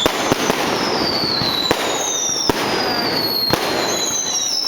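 Fireworks going off close overhead: a continuous crackling hiss with a sharp bang about every second and repeated whistles that fall in pitch.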